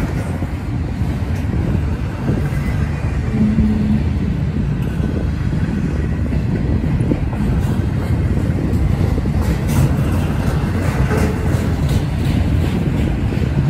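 A BNSF double-stack intermodal train's well cars rolling past slowly, their steel wheels rumbling steadily on the rails, with scattered clicks and a run of sharper clacks about ten seconds in.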